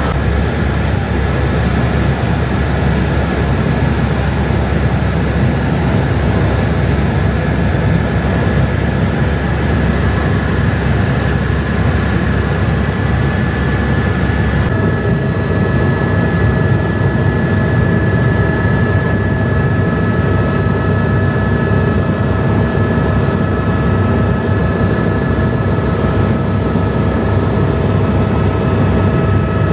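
Helicopter running steadily in flight: a dense low rumble with several steady high whining tones over it. The whole sound shifts abruptly about halfway through.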